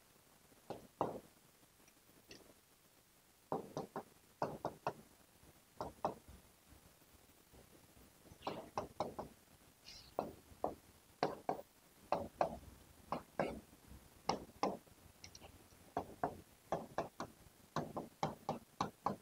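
Writing on a board: faint, irregular clusters of short taps and knocks, some bunched closely, with brief gaps between.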